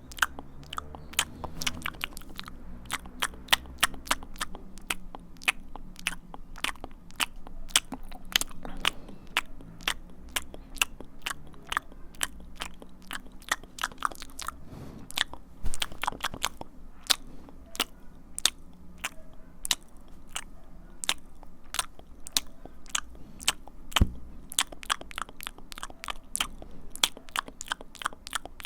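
ASMR mouth sounds: irregular wet clicks and pops of the tongue and lips, several a second.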